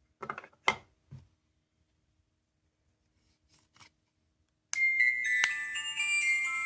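A few handling clicks on a small plastic toy, then, about two-thirds of the way in, a sound-making capsule toy suddenly starts playing a chime-like melody of steady tones.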